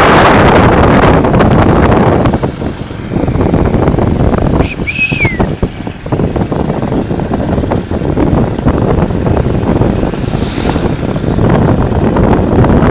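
Wind buffeting the microphone of a camera carried on a moving bicycle, a loud, choppy rumble. A short high whistle-like squeak cuts through about five seconds in.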